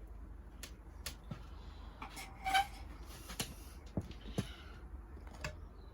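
Scattered light clicks and taps of hands and a wooden stick pressing sowing holes into a pot of compost, with a short rustle about two and a half seconds in.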